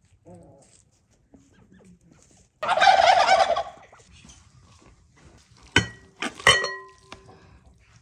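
A domestic turkey gobbling once: a loud, fast, rattling call about a second long, a few seconds in. Two sharp clinks with a brief ring follow about three seconds later.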